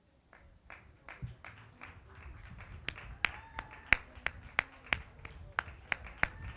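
Rhythmic clapping in time, about three claps a second, growing louder.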